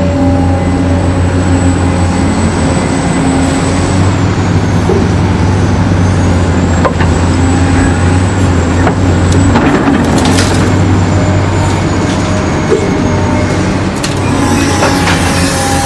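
Remote-control toy construction vehicle running: a steady, loud engine-like drone with a faint high whine that wavers in pitch, and a few faint clicks.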